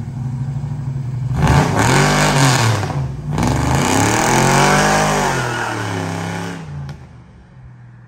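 Exhaust of an LS-swapped Chevrolet Impala SS V8 through new Dynomax mufflers, revved twice in neutral as the car drives past. The first rev rises and falls about a second and a half in, and a second, longer rev follows. The sound drops away near the end.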